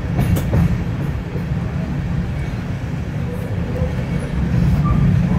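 Steady low rumble of a wooden heritage passenger carriage rolling along the rails, heard from inside with the window open, with a few sharp clicks of the wheels near the start.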